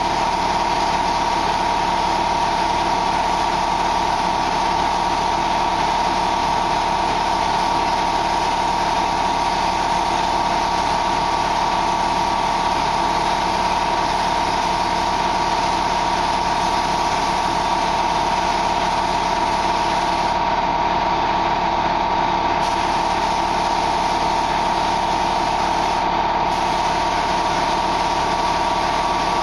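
Spray-painting equipment running loud and steady: a constant machine whine under the hiss of the paint spray gun. The hiss drops out for about two seconds two-thirds of the way through and again briefly near the end, as the trigger is let off.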